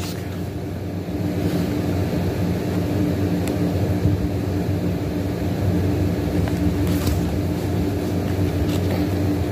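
Steady mechanical hum of a running room appliance, with a few faint crinkles of sheet-mask packets being handled.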